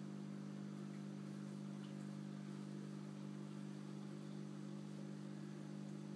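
Aquarium equipment running with a steady low hum, unchanging throughout.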